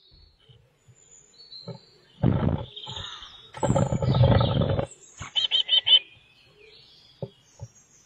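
Eurasian blue tits in a wooden nest box with a chick of fledging age: two loud, rough bursts of sound, then a quick run of four high chirps about five seconds in, and a couple of light taps near the end.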